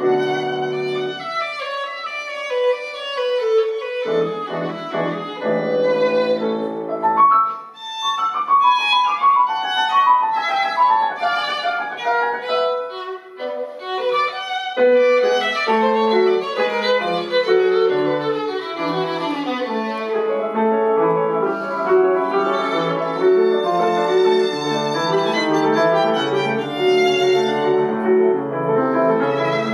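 Background music: violin with piano accompaniment.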